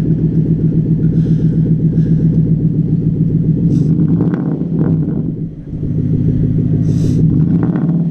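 Jaguar S-Type R's supercharged V8 running at idle through a straight-piped exhaust, a steady, deep and loud tone that dips briefly a little past halfway.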